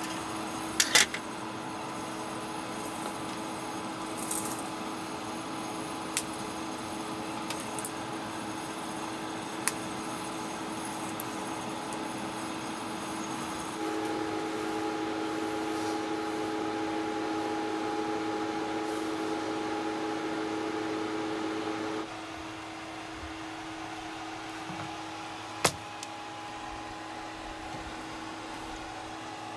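Steady mechanical hum of an appliance running inside a camper van, holding a few fixed tones. It gets louder about halfway through and drops back about three-quarters of the way in, with scattered sharp clicks and light knocks as things are handled, the sharpest pair about a second in.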